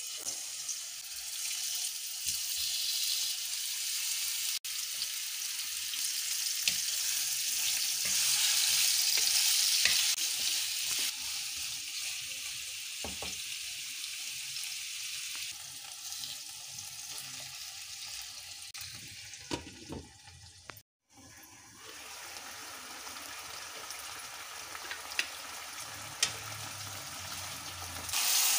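Marinated chicken pieces sizzling in hot oil in a non-stick wok on high flame: a steady frying hiss, loudest about a third of the way in, with a few soft knocks. The hiss breaks off for a moment about two-thirds through and then carries on.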